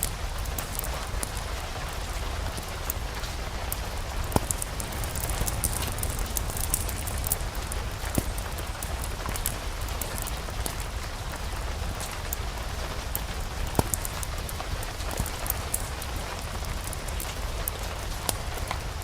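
Steady rain mixed with a crackling wood fire in a fireplace, over a low rumble. A few sharp pops stand out among the many small crackles and drips, about four, eight and fourteen seconds in.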